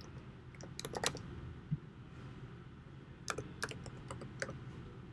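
Faint computer-keyboard typing in two short bursts of key clicks, about a second in and again after about three seconds, as a username and then a password are typed.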